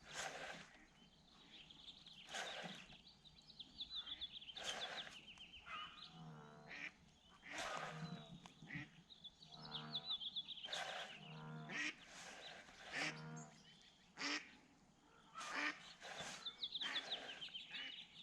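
A goose honking about five times in the middle stretch, with a small bird's high trilling chirps now and then, and several short bursts of noise.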